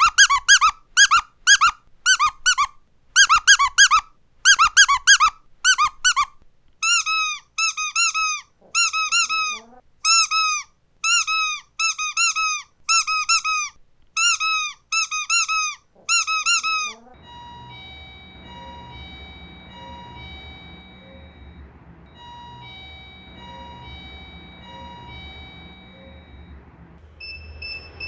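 A squeaky dog toy is squeezed over and over in quick, loud squeaks, each with a rising-then-falling pitch, for about seventeen seconds. It then gives way to a quieter electronic chime melody that plays twice over a low hum.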